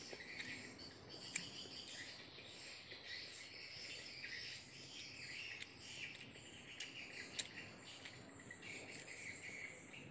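A faint, steady chorus of insects with occasional bird chirps, and a few sharp clicks scattered through it.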